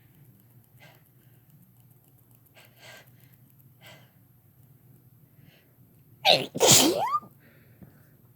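A person sneezing once, loudly, about six seconds in: a short sharp burst, then the main, longer blast that ends in a falling vocal sound.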